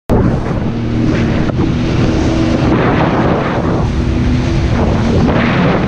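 Jet ski engine running at speed, a steady drone under loud wind buffeting on the microphone and hissing spray.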